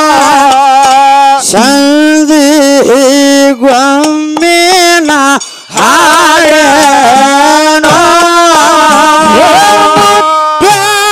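A woman singing a Kannada dollina pada folk song loudly through a microphone and PA, holding long notes with wide vibrato and sliding pitch. Her voice breaks off briefly a little past halfway, then carries on.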